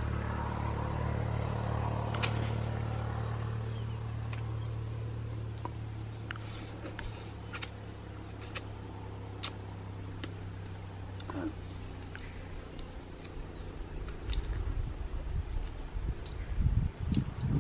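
Insects droning steadily at a high pitch, with scattered sharp clicks. Low bumping rumbles come in near the end and are the loudest sound.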